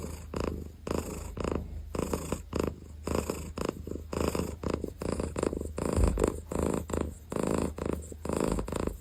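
Domestic cat purring, a rough rumble that pulses a couple of times a second without a break.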